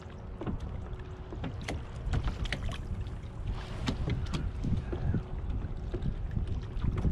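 Small clicks and knocks of fishing gear being handled in a plastic kayak, over a low rumble of wind on the microphone and water against the hull.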